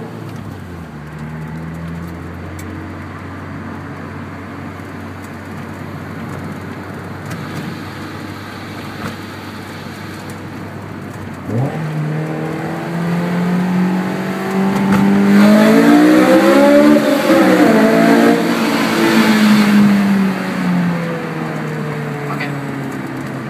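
Honda S2000's four-cylinder engine through an HKS Hi-Power dual exhaust with a test pipe in place of the catalytic converter, heard in a tunnel: a steady low drone while cruising, then about halfway through the revs jump and the engine pulls hard, its note climbing to the loudest point a few seconds later before easing back off.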